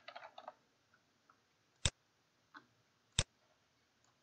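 Computer keyboard typing that stops about half a second in, followed by two sharp mouse clicks a little over a second apart, with a fainter click between them.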